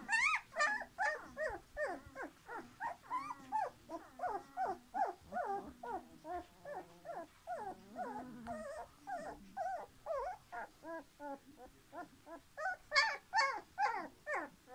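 A litter of young puppies whimpering and squeaking: many short high calls overlapping, several a second, with a louder run of squeals near the end.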